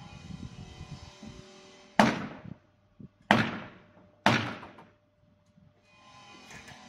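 Three loud knocks on the old wooden barn door, about a second apart, each ringing briefly before it fades. Soft background music plays around them.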